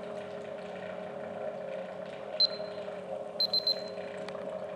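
Magnetic stirrer running with a steady hum. A single short high electronic beep sounds about two and a half seconds in, then three quick beeps about a second later.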